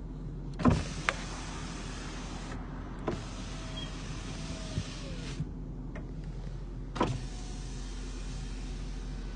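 Power window motors of a 2002 Jaguar XJR running three times, each whir starting with a click and lasting about two seconds, with a steady low hum underneath.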